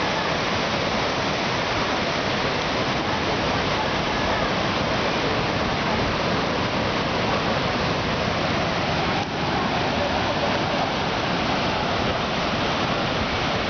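Heavy ocean surf breaking against a rocky shore, a steady, unbroken rush of wave noise.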